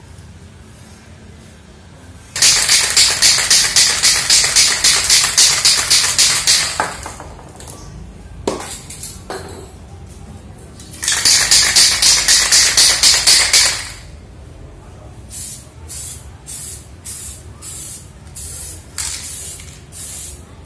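Aerosol spray paint can (Diton Premium) hissing in two long passes of a few seconds each, then in quick short bursts about two a second.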